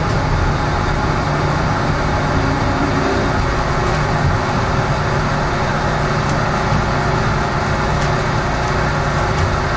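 Subway train running along the track, heard from inside the car: a steady rumble of wheels on rail with a constant low hum.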